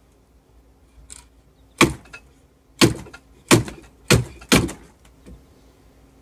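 Five sharp knocks over about three seconds, coming closer together toward the end, as a PVC pipe freshly coated with primer and cement is driven down by hand onto its fitting.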